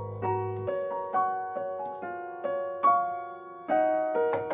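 Background music: a gentle piano tune of single notes and small chords, a new note struck about every half second.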